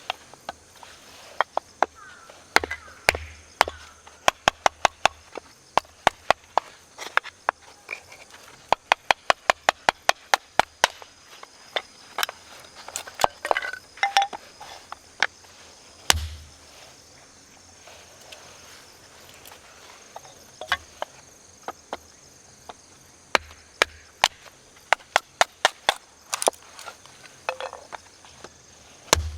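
Repeated sharp wooden knocks in quick runs of several a second, with a few dull thumps between them, typical of chopping or splitting small firewood by hand. Insects chirp steadily in the background.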